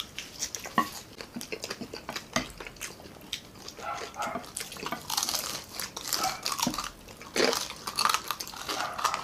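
Several people eating crispy pata (deep-fried pork knuckle) with their hands: many short clicks, with crunching and smacking bites and chewing, and clinks of plates and utensils. Louder bursts of crunching come about halfway through and again near the end.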